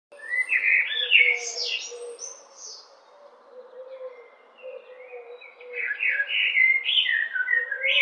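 Male Eurasian blackbird singing: two mellow, fluted phrases, each running up into a higher, squeaky twitter, with a quieter pause between them.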